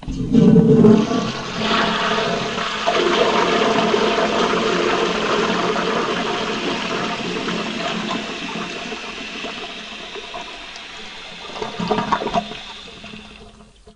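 Toilet flushing: a loud rush of water that starts suddenly, slowly fades, and surges briefly near the end.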